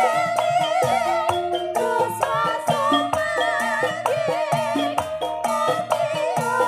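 Campursari band music played live: a wavering melody line with heavy vibrato over sustained lower notes and steady, evenly spaced drum strokes.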